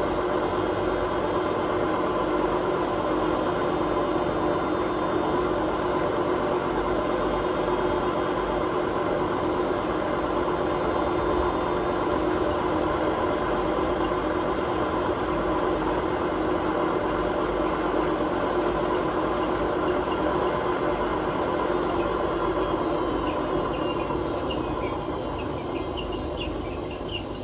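Hotpoint WMA32 washing machine spinning at its 600 rpm setting, the drum's worn bearings rumbling and clattering under the steady spin hum. Near the end the pitch falls and the sound quietens as the drum slows down.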